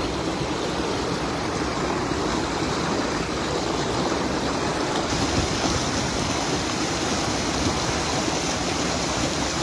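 River water rushing steadily over a concrete weir.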